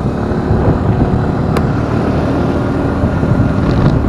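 Motorcycle under way, its engine running with heavy road and wind rumble after picking up speed. One sharp click about a second and a half in.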